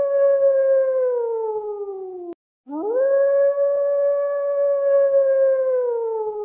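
A canine howl that slides downward and is cut off abruptly a little over two seconds in, then a second howl that rises quickly, holds one steady pitch, and slides down near the end.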